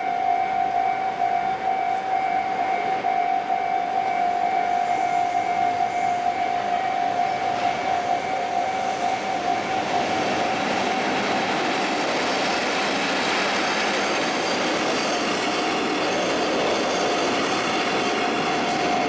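Japanese level-crossing warning bell ringing steadily. From about nine seconds in, a train rolls over the crossing, and its rolling rail noise half drowns the bell until near the end.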